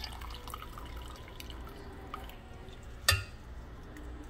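Liquid dripping from boiled bladderwrack draining in a mesh strainer, small scattered drips falling into the pot of cooking water, with one sharp knock about three seconds in.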